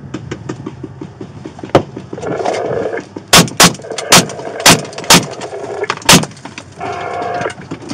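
A handgun fired six times in quick succession from inside a car, through the windshield, starting about three and a half seconds in. A single sharp crack comes earlier, nearly two seconds in.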